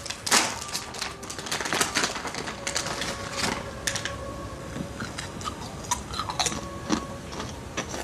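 Clear plastic snack bag crinkling and rustling as hands rummage through it, mixed with crunching and chewing as a snack is eaten; irregular crackles throughout.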